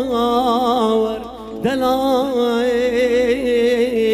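A male singer's amplified voice singing a mawwal, an ornamented vocal line with quick wavering turns, over a steady held accompanying note. A new phrase starts about a second and a half in with a quick upward slide into the note.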